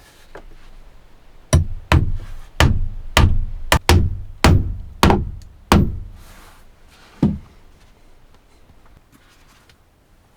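A hand tool striking wood: about nine sharp knocks roughly every half second, then a single knock after a short pause.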